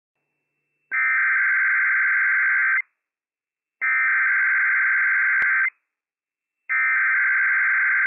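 Emergency Alert System SAME digital header from NOAA Weather Radio: three bursts of rapid two-tone data warble, each about two seconds long and about a second apart. The header encodes a Fire Warning (FRW) alert.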